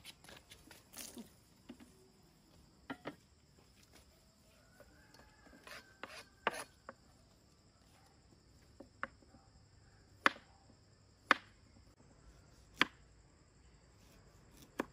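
Scattered sharp knocks or chops, sparse at first, then a few louder ones about a second apart in the second half, over a steady high insect drone.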